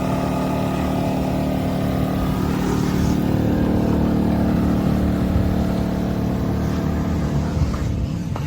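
maXpeedingrods 4000W dual-fuel inverter generator running steadily, a constant engine hum with no change in speed.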